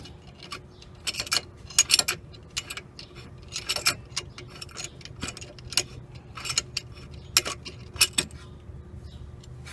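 Irregular metallic clicks and clinks of a steel C-clamp being unwound and lifted off a brake caliper, some in quick clusters, over a steady low hum.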